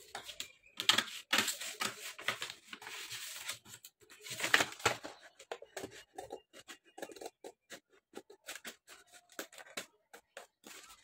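Scissors cutting through stiff paper: a run of slicing strokes and short snips. The snips come quicker and shorter in the second half.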